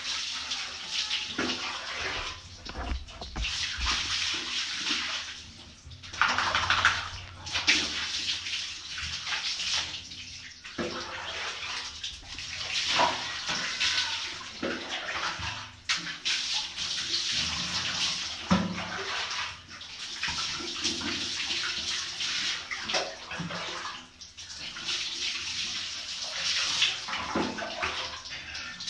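Water running and splashing in uneven surges and short pauses as dogs are being washed.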